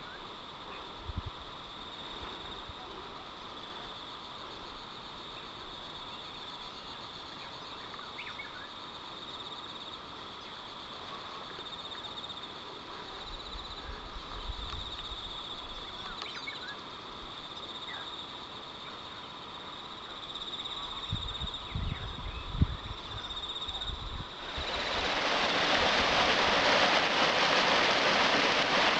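Steady pulsing chorus of calling insects and frogs with a few faint chirps and some low thumps on the microphone. About 24 seconds in it cuts abruptly to loud rushing water of a creek.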